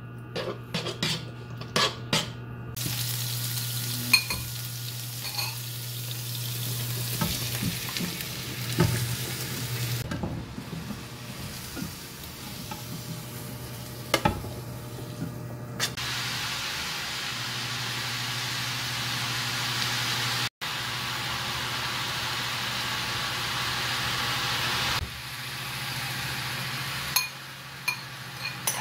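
A metal spoon clicks against a nonstick frying pan, then minced garlic and sliced fish cake sizzle in hot oil as they are stir-fried, with a steady hiss and the occasional scrape and knock of the spoon. A steady low hum runs underneath.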